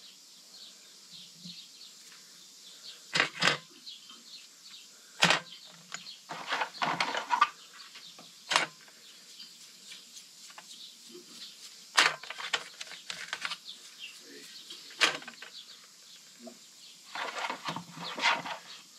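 Irregular clicks, clinks and short scrapes of hand tools and metal brake caliper parts being handled and worked on, with a dozen or so sharp knocks spread out between quiet gaps.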